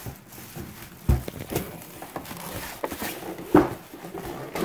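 Cardboard shipping box and packing being handled as a plastic air fryer is lifted out: rustling with a few sharp knocks, the loudest about three and a half seconds in.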